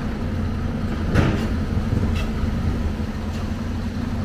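Excavator diesel engine running steadily, with a few sharp metal clanks from scrap metal being handled. The loudest clank comes about a second in, and a few lighter knocks follow.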